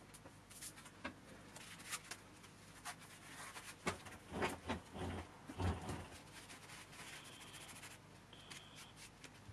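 Light workbench handling noises: scattered small clicks and rustling, busiest and loudest in the middle, with cloth being pulled near the end and a few short high chirps.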